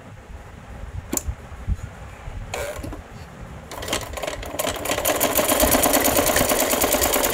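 A few sharp clicks, then about four seconds in a Sujata sewing machine starts stitching and runs on in a fast, even rhythm. It is stitching a test seam smoothly after its bobbin case was cleaned and the bobbin-case spring tightened.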